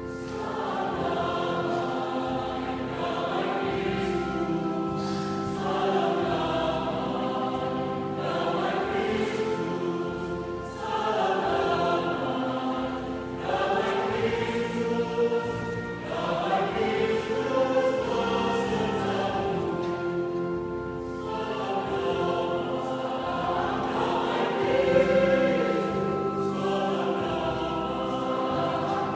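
Choir singing a sacred piece, phrase after phrase, with short breaks for breath between phrases.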